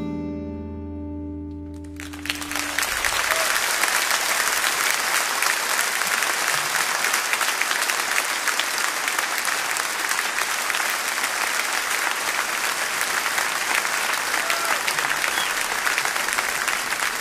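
The song's final chord rings out and fades. About two seconds in, an audience breaks into steady, sustained applause.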